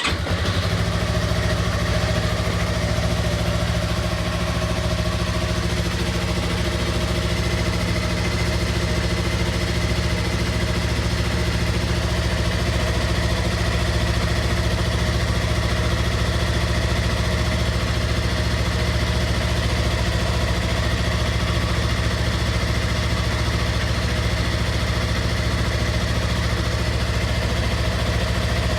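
2016 Yamaha R3's parallel-twin engine, just started on fresh oil after an oil and filter change, idling steadily.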